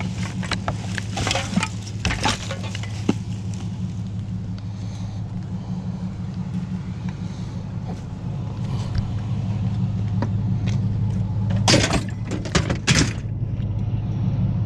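A vehicle engine running steadily, with knocks and clanks over it: several in the first three seconds, and the loudest strikes close together about twelve to thirteen seconds in.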